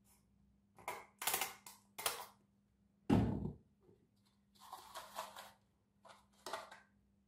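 A plastic squeeze bottle of hair-colour developer squirting and sputtering into a plastic tint bowl, then a loud thud about three seconds in. After that, a tint brush scrapes and stirs the mixture against the bowl in two short spells.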